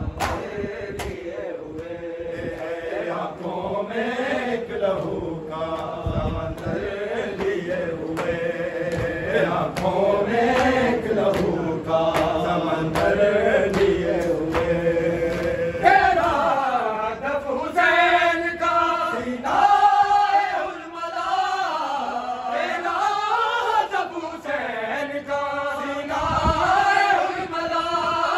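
A group of men chanting an Urdu noha (Shia lament) in unison, the melody rising and falling phrase by phrase. Under it are scattered slaps of chest-beating (matam).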